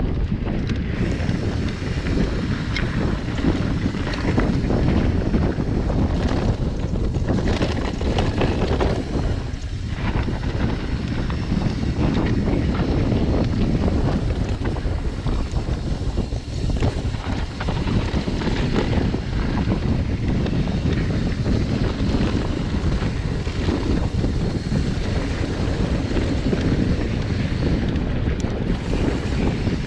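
Wind buffeting a chest-mounted GoPro's microphone as a mountain bike rolls along a dirt singletrack: a loud, steady rumble, mixed with the tyres and bike rattling over the trail.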